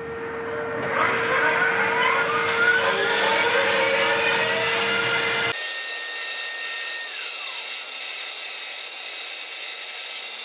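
Bandsaw switched on, its motor and wheels spinning up with a rising whine, then running steadily, with a whine that falls once about seven seconds in.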